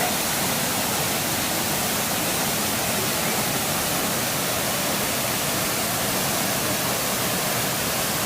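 Waterfall rushing: a steady, even noise of falling water with no change throughout.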